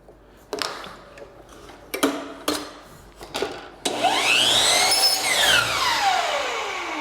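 A few knocks and clicks, then about four seconds in a sliding miter saw's motor winds up with a rising whine, cuts through baseboard, and spins down with a long falling whine.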